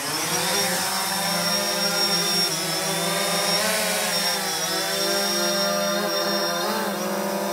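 DJI Phantom quadcopter drone's propellers spinning up as it lifts off, the whine rising in pitch over the first half second. It then settles into a steady, high, many-toned whine as it climbs and hovers, hauling a baited fishing line, with the pitch wavering a little as it manoeuvres.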